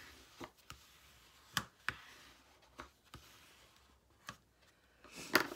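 Burnishing tool rubbed over the glued flap of a manila file folder: soft paper rubbing broken by sharp clicks and taps every half second or so, the loudest a short scrape near the end.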